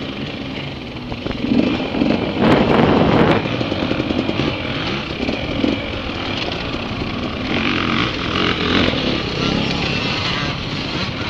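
Dirt bike engine running as it is ridden along a trail, heard from the rider's own position, with throttle changes; it is loudest for a stretch about two seconds in.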